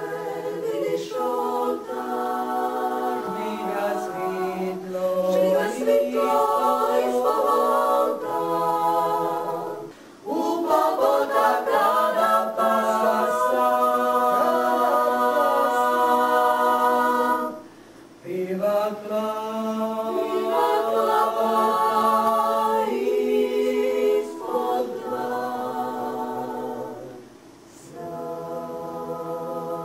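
A women's vocal group singing a cappella, several voices holding long notes together in harmony. The song runs in long phrases with short breaks about 10, 18 and 27 seconds in.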